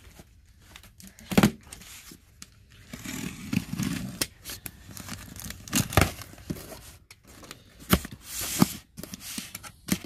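Cardboard box being opened with a utility knife: the blade slicing through tape and cardboard, flaps rustling and tearing, with scattered sharp knocks of the box and cutter being handled.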